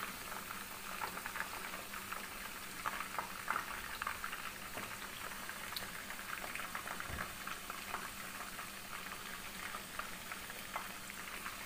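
Chicken pieces frying in hot oil in a wok: the oil bubbles and crackles steadily, with many small scattered pops.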